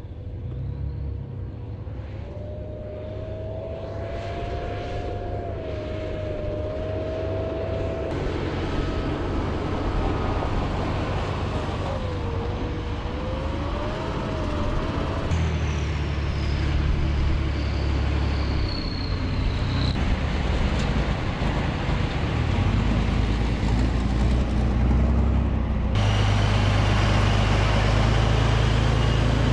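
Heavy military wheeled vehicles' diesel engines running and driving, a low rumble with a whine that wavers in pitch over the first half. The sound changes abruptly at several cuts and grows steadily louder, loudest near the end as a multi-axle Topol missile launcher truck rolls close by.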